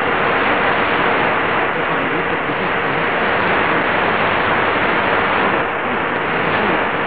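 Heavy shortwave static from a Qodosen DX-286 radio's speaker, with the BBC World Service relay from Ascension Island on 9870 kHz buried in it. Speech barely shows through the hiss over a faint steady whistle: poor, unclear reception.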